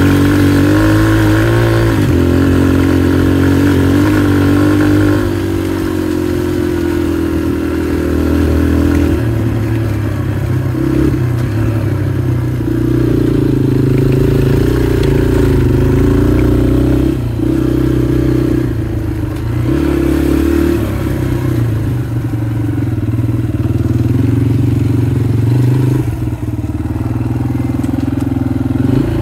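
Motorcycle engine running under way on a dirt trail, close to the microphone. Its note drops about five seconds in, then rises and falls with the throttle, with several brief dips where the throttle is rolled off.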